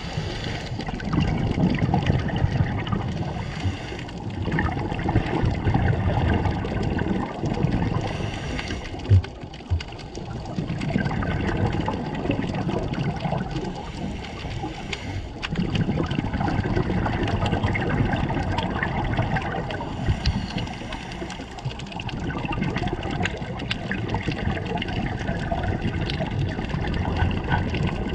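Muffled water noise around an underwater camera moving through the sea, swelling and fading every few seconds, with a brief knock about nine seconds in.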